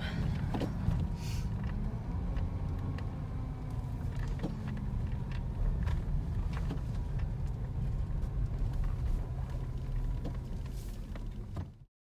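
Car driving on a dirt road, heard from inside the cabin: a steady low rumble of engine and tyres with a few light knocks. It cuts off abruptly near the end.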